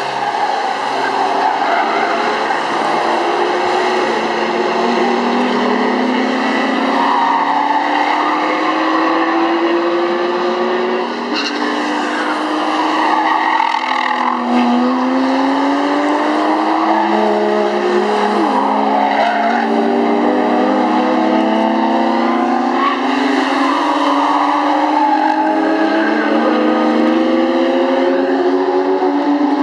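Sports car engine under hard acceleration on a race track, its pitch climbing through each gear and dropping sharply at every upshift, again and again.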